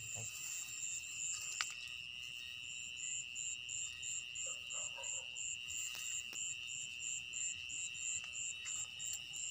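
Night insect chorus: crickets keep up a steady high trill, while another insect chirps in quick regular pulses, about three a second, that start a couple of seconds in. A few sharp clicks and rustles come from rice plants being pushed aside, the loudest just under two seconds in.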